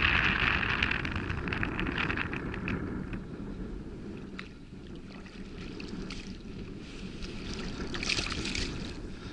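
A large hooked brown trout thrashing and splashing at the surface in shallow water, splashing hardest at the start and again about eight seconds in, with wind rumbling on the microphone.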